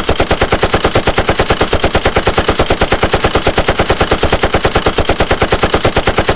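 Rapid machine-gun fire sound effect: sharp shots evenly spaced at about ten a second, running without a break.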